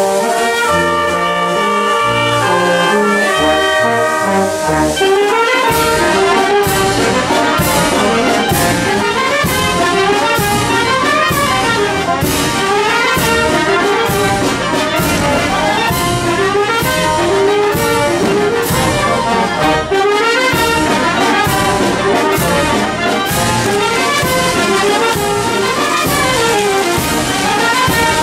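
Brass band of clarinets, trumpets, saxophone and tuba playing. Held chords for the first five seconds or so, then a brisk tune with a steady beat and fast rising and falling runs.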